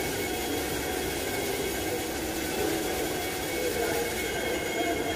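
A machine running steadily, with an even hiss and a faint high whine.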